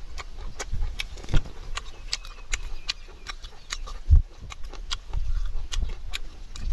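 Irregular sharp clicks and taps, several a second, over a low rumble, with one dull thump about four seconds in.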